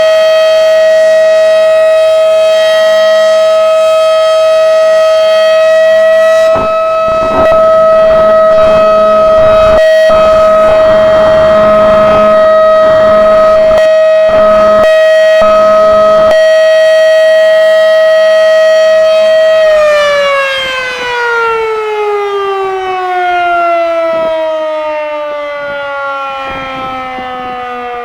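Federal Signal Model 5/7 outdoor warning siren sounding the steady alert tone on test. About 20 seconds in it shuts off and winds down, its pitch gliding steadily lower and fading.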